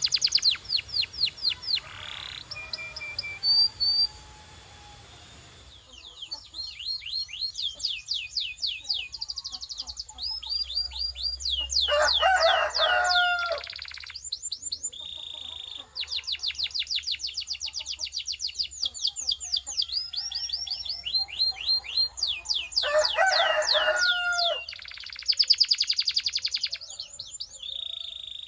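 Domestic canary song: fast trills of rapidly repeated notes, switching from one trill to another every second or two, with a lower warbled phrase about 12 seconds in and again about 23 seconds in.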